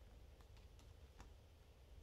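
Faint page turn of a thick paper art booklet, handled by hand: a few light paper ticks in the first second or so, over a low steady hum.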